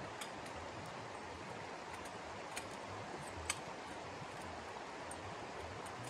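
Steady rushing background noise, with a few faint sharp clicks scattered through it.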